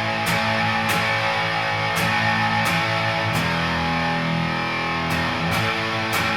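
Electric guitar through a Hill Giant One Knob Fuzz pedal: thick fuzz-distorted chords struck every half second or so, with one chord held for nearly two seconds in the middle. Played on the Jaguar-style guitar's bridge pickup into a Vox AC15C1 and a Princeton Reverb, both set clean, so the distortion comes from the pedal.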